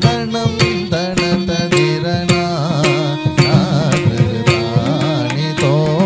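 Carnatic music for a Bharatanatyam thillana in raga Paras, Adi talam: a melody with wavering, ornamented notes over regular sharp percussion strokes.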